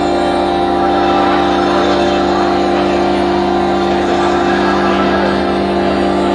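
Experimental drone music from a lo-fi noise compilation: a dense, steady wall of held low tones under a hissing wash, with a faint regular pulse underneath.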